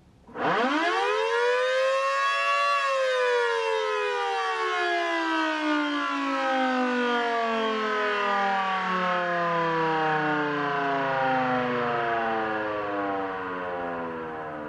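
Federal Signal Model 2T dual-tone outdoor warning siren with 5/6 port rotors giving a short test blast: it starts about a third of a second in, winds up quickly to full pitch in about two seconds, then coasts down with its two-note chord slowly falling in pitch and fading.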